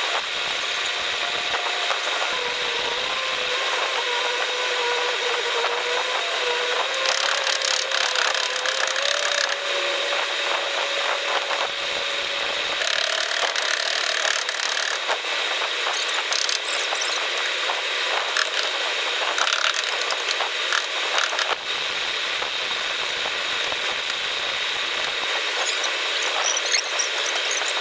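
A power tool running steadily with a high whine, its lower tone drifting slowly up and down, with scattered clicks.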